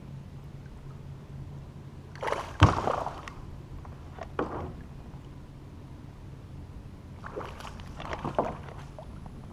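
Hooked bass splashing and thrashing at the surface beside a kayak, in bursts: about two seconds in with a sharp knock, again around four and a half seconds, and in a cluster near the end.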